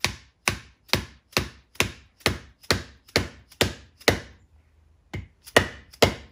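Mallet tapping a glued wooden wedge into the kerf of a hickory axe handle to lock the axe head on: steady knocks about two a second, a short pause a little past four seconds in, then the knocks resume.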